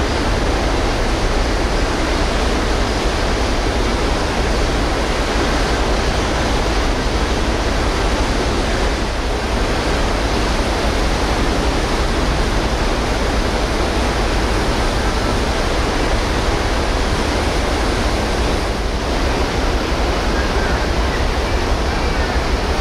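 Steady rushing noise of wind and sea on the open deck of a ferry under way, with a heavy low rumble beneath it.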